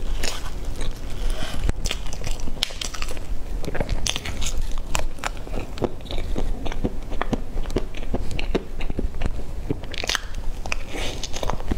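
Close-miked chewing and wet, sticky mouth sounds of someone eating soft cream cake, made of many small irregular clicks and smacks, with a metal spoon scooping the cake.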